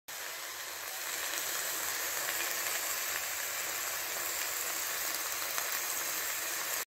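Crab masala sizzling in a hot pan: a steady hiss that cuts off suddenly near the end.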